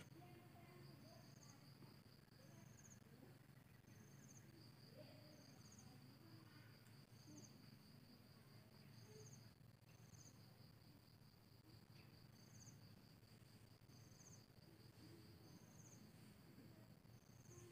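Faint insects: a steady high trill with a short chirp repeating about once a second.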